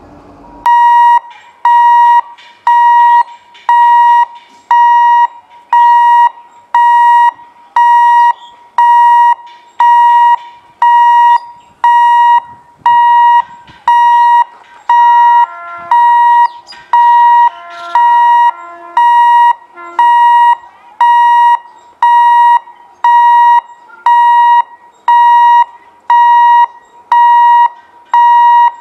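Level-crossing warning alarm beeping loudly and steadily, one electronic beep about every second on a single unchanging pitch, warning of an approaching train. Some fainter extra tones join in briefly near the middle.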